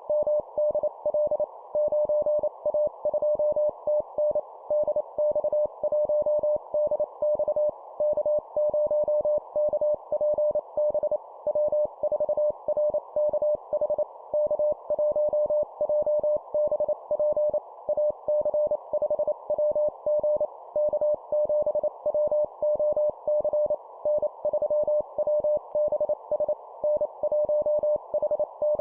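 Morse code (CW) call signs sent at 25 words per minute: a single steady-pitched tone keyed rapidly in dots and dashes, with a steady hiss underneath like a receiver's passband.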